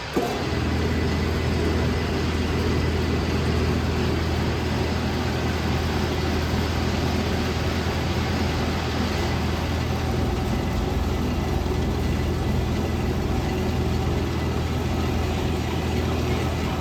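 Metal lathe switched on just after the start, then running steadily with a low hum.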